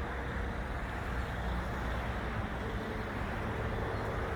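Steady outdoor vehicle noise: a low engine and traffic rumble with no sharp events, and a faint thin hum that comes and goes.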